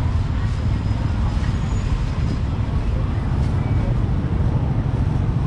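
Busy street ambience: a steady low rumble of road traffic with indistinct voices.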